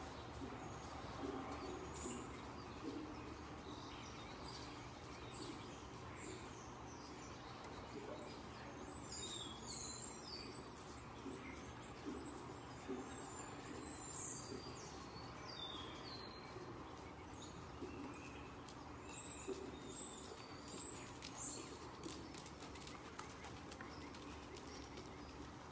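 Small birds chirping in short, high, falling notes, many times over, thinning out near the end, over a steady low hum.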